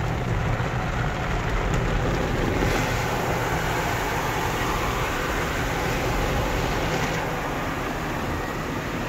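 Water spray from an automatic tunnel car wash pouring over a car's windshield and body, a steady rushing hiss heard from inside the car.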